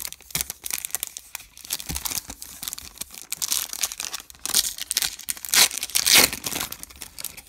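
Foil wrapper of a 2022 Bowman Platinum baseball card pack being torn open and peeled apart by hand, crinkling and crackling, loudest about five to six seconds in.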